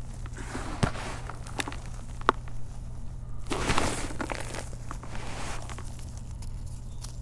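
Hands crushing and crumbling powdery crushed chalk: soft crunches and sifting rustle with a few sharp snaps of breaking lumps. The crumbling grows louder for about a second a little past the middle, over a steady low hum.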